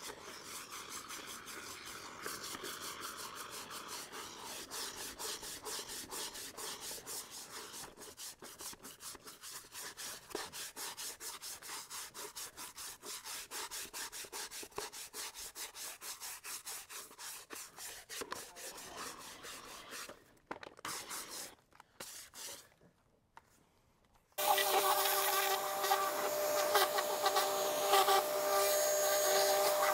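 Fast, regular scrubbing strokes for about twenty seconds. After a brief pause, a vacuum-type motor switches on near the end and runs steadily and louder, with a whine.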